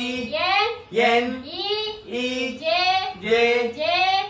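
Classroom recitation: a high voice chanting in a sing-song, drawn-out syllables each rising in pitch, about one every two-thirds of a second.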